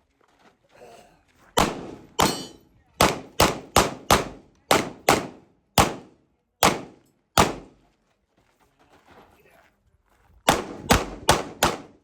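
Pistol shots fired rapidly at a practical-shooting stage, a Kimber 2011-style pistol: about eleven shots, many in quick pairs, then a pause of about three seconds and a fast string of five near the end.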